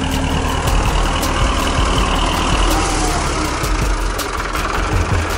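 MTZ-80 tractor's four-cylinder diesel engine running at a steady idle.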